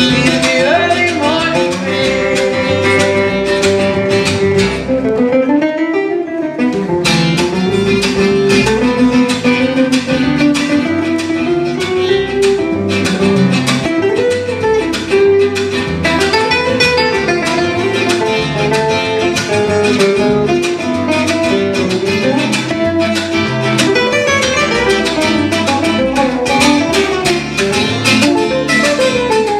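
Acoustic guitar solo: a quick picked single-note melody line over a guitar and bass accompaniment, in an instrumental break of a song.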